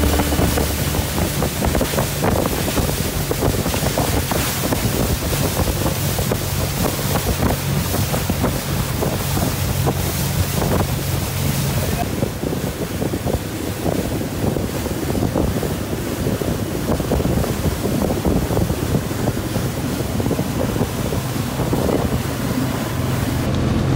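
Motorboat under way at speed: a steady engine hum under water rushing past the hull and heavy wind buffeting the microphone.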